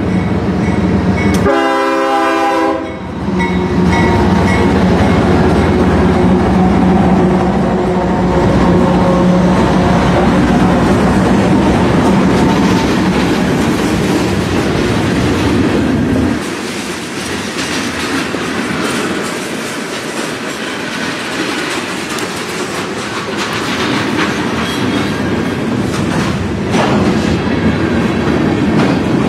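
Freight train passing a grade crossing: the diesel locomotive's horn sounds one short blast about two seconds in. The locomotives then run past with a steady heavy drone, and from about halfway the freight cars roll by with clacking wheels.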